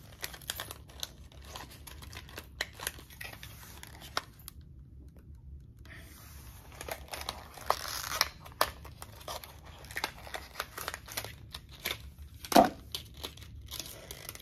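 Press-on nail packaging being torn open and crinkled by hand, with scattered small clicks as the nails and card are handled. There is a brief pause about a third of the way in, and one louder sharp click near the end.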